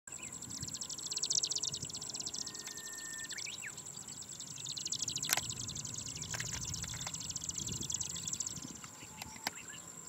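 Marsh grassbird (Japanese marsh warbler) singing from a perch: long runs of rapid, dry, repeated high notes, broken by a short pause about four seconds in. A held whistled note from another bird slides upward near the three-second mark. A single sharp click comes just after five seconds.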